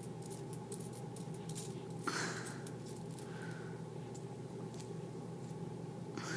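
Lincoln wheat pennies clinking lightly against one another as a hand sorts through a pile of them on carpet: scattered small clicks with a soft slide now and then.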